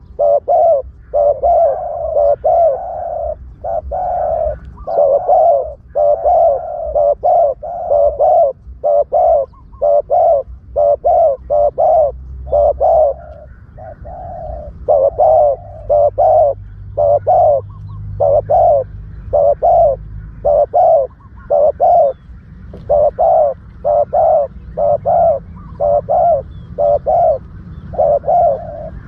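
Spotted doves cooing over and over, a close run of low coos in short phrases, as used for a dove-trapping lure call.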